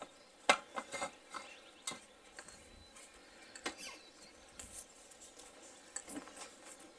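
Scattered metallic clicks and knocks, the loudest about half a second in, as an outboard propeller is braced against a wooden board and its prop nut is worked loose with a socket on a wrench.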